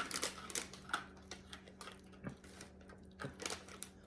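Irregular crisp clicks and crackles, thicker in the first second, from crunchy fried green peas and their packet being handled and eaten.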